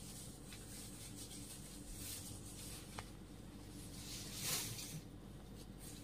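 Faint rustling of a lightweight cotton tant saree being handled and unfolded, swelling softly twice, with a single light click about three seconds in.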